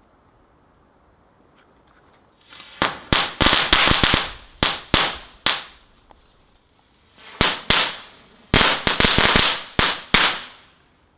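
Small consumer fireworks going off in two bursts: each starts with a short hiss, then a rapid, irregular string of sharp bangs with hissing crackle lasting about three seconds.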